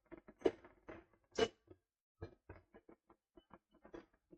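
Knocks and clicks of a wheeled oil drain being rolled into place. A few louder knocks come in the first second and a half, then a run of quick light clicks.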